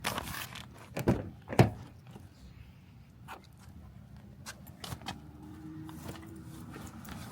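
Several knocks and clunks in the first two seconds, the loudest about a second and a half in, then a few fainter clicks.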